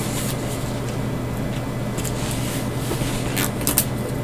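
Steady low background hum, with a few faint scratchy ticks and rustles of hands handling the headphone box.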